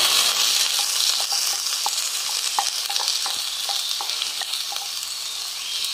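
Chopped onions hitting hot oil in a pan, breaking into a loud sizzle at once; the hiss eases off slowly, with scattered small pops and crackles of frying.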